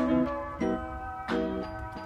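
Background music: a light instrumental with a chord struck about every two-thirds of a second.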